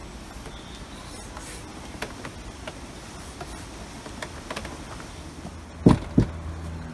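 Bicycle pump and wheel being handled during reinflation: scattered light clicks and ticks over a steady low hum, then two sharp knocks close together near the end.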